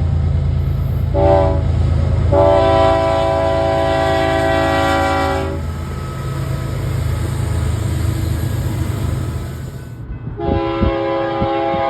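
Locomotive air horn sounding several notes at once, a short blast and then a long one, over the low rumble of the passing train. The horn stops and the train rumbles on. Near the end another horn blast begins over sharp clicking of wheels on the rails.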